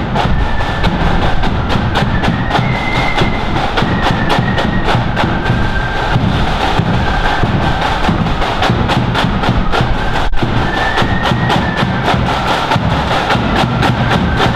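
Marching flute band playing, with flutes carrying the tune over rapid snare and bass drum beats.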